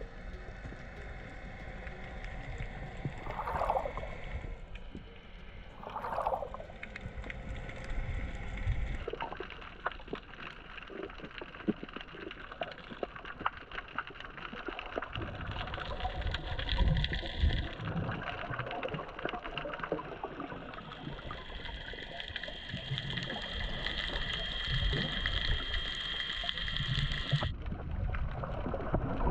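Underwater sound picked up by a camera below the surface: a muffled wash of water with dense fine crackling, and two short tones a few seconds in.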